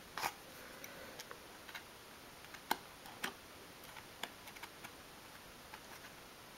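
Faint, irregular small clicks and taps from fingers and a craft blade handling a miniature card packet on a wooden dolls house cupboard shelf, the sharpest a little under halfway through.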